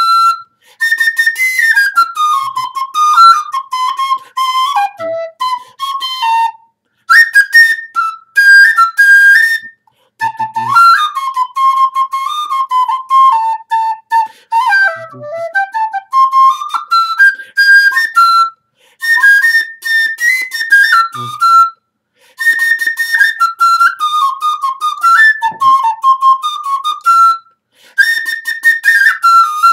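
Wooden recorder played solo: a single-line melody moving up and down in short phrases, with brief pauses between them.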